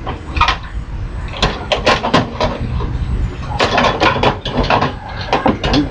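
Metal parts of a microwave oven knocking and clattering as it is taken apart by hand for scrap, a string of irregular knocks and rattles.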